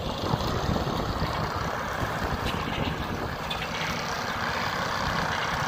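Bobcat compact track loader's diesel engine running steadily as the machine drives along with its snow plow blade.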